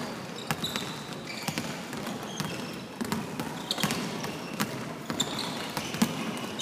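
Basketball bouncing on a hardwood gym floor in irregular thuds, the loudest about six seconds in, with short high squeaks of sneakers on the court.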